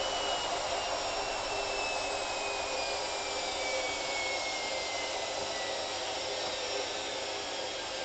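Hoover CA232 front-loading washing machine with its drum turning: a steady rush of drum and water noise with a thin motor whine that falls slowly in pitch as the drum slows.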